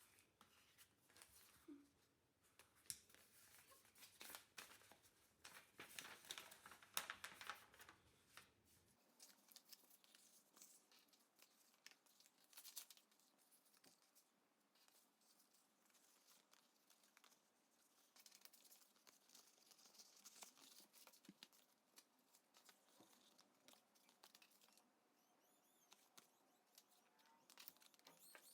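Faint rustling, crinkling and tearing of craft-kit packaging being handled, with scattered light clicks. Faint bird chirps come in near the end.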